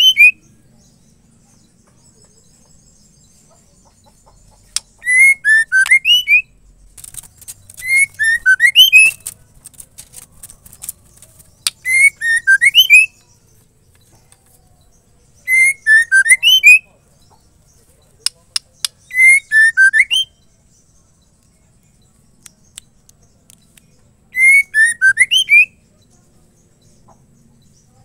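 Female white-rumped shama singing six short bursts of quick whistled notes, each about a second long and coming every three to four seconds. A few sharp clicks come between the bursts.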